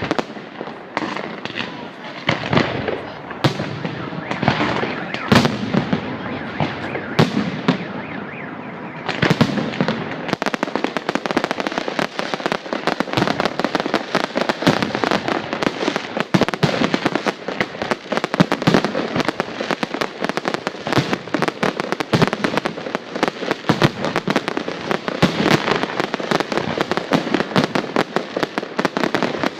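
Fireworks display: separate bangs of bursting shells at first, then, about nine seconds in, a dense, continuous crackling barrage that goes on.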